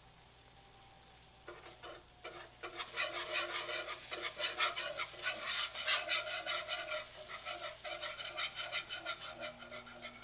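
Wire whisk beating a thick paste in a nonstick skillet as milk is stirred in, a fast run of scraping strokes of the wires against the pan starting about a second and a half in.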